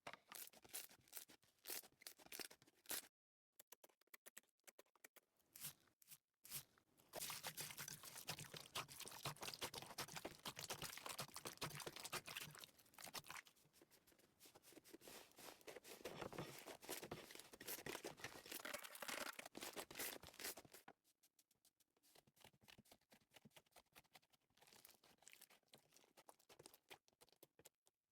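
Slime being squeezed and pressed by hand, giving quick crackling, clicking pops. The clicks are sparse at first, thicken into a dense run of crackling through the middle, then thin out again near the end.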